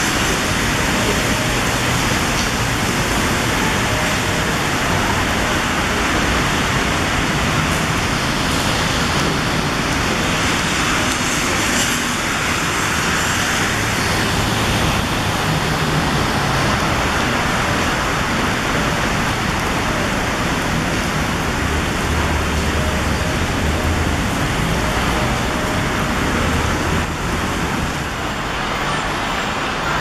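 Steady rushing noise of typhoon wind and rain over a waterlogged city sidewalk, with road traffic running underneath.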